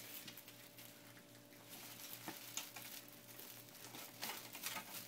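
Faint rustling and scattered light clicks as a DIY softbox's reflective-lined fabric and PVC frame are handled, over a steady faint hum.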